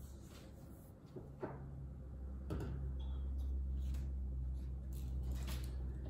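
A silicone spatula scraping a stainless steel pot as melted beeswax lip balm is poured into a filling tray: a few soft scrapes and knocks. A low steady hum comes in about a second in.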